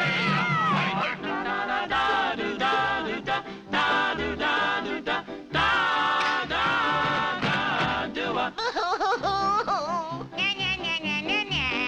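Lively 1940s cartoon orchestral score with a wavering, vibrato melody line over short, choppy accompanying notes.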